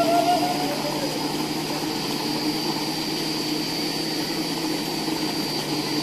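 A motor running steadily, with a low hum and a thin high whine above it; a whine rises and levels off in the first second.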